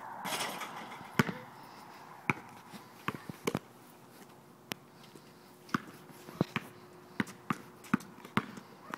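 A basketball bouncing on a hard court: about a dozen sharp bounces at uneven intervals rather than a steady dribble, with a brief rushing noise near the start.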